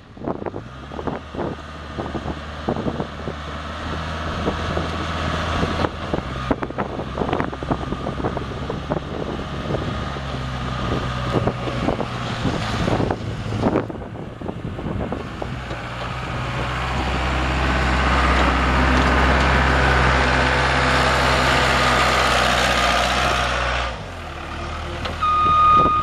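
Case 85XT skid steer's 3.9-litre four-cylinder turbo diesel running as the machine drives, with rattles and knocks through the first half. About two-thirds of the way in the engine gets louder and higher, holds there, then drops back suddenly near the end, where a backup alarm beeps.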